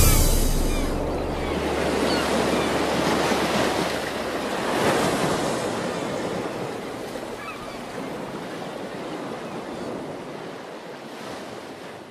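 Sea surf: waves washing in as a steady rushing noise, swelling about five seconds in and then slowly fading away.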